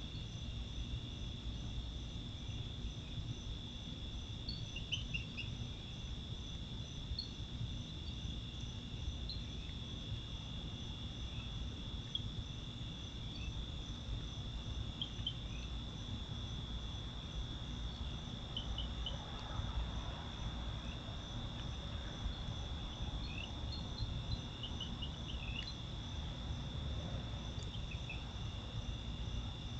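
Night insect chorus of crickets or katydids: a steady, unbroken high trill, with scattered short chirps over it and a low steady rumble underneath.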